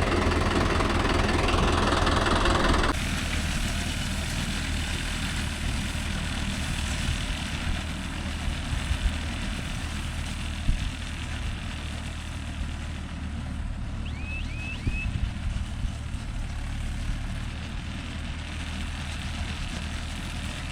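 Mahindra Yuvo Tech Plus 585 tractor's diesel engine running steadily while driving a Bharat baler; the sound drops to a quieter level about three seconds in. Three faint short chirps come a little past the middle.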